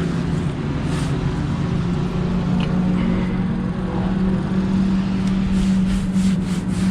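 A motor engine running at a steady, unchanging speed, a constant low hum, with a few light ticks near the end.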